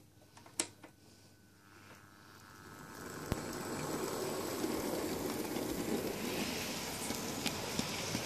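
Heljan OO gauge Class 47 model locomotive running on sectional track with its wagons: a steady whir and rumble of motor and wheels on the rails builds up over the first few seconds, with a few sharp clicks.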